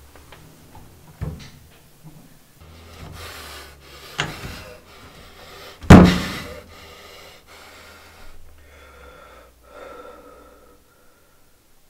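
A person breathing heavily, with gasps, between a few sharp knocks. The loudest is a hard thump about six seconds in, like something struck against the bathroom counter.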